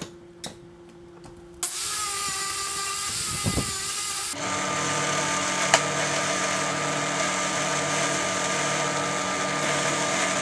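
Benchtop drill press running steadily with a wire wheel, a steady motor hum under the whir of the wire brush, as a small steel BB-gun part is held against it to strip rust. Before the drill press starts there are a few light clicks, then a shorter whirring of a tool that winds down. A single sharp tick comes a second or so after the drill press starts.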